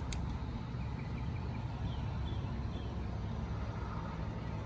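Steady low outdoor rumble, with a single sharp click just after the start and a few faint high chirps.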